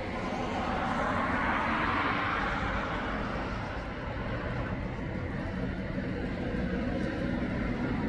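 Steady road-traffic noise, swelling and fading as a vehicle passes about two seconds in.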